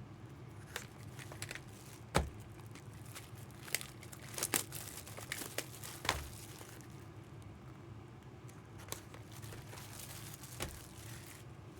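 Trading card packs being handled and opened: wrappers crinkling and tearing, with scattered sharp clicks, busiest in the first half.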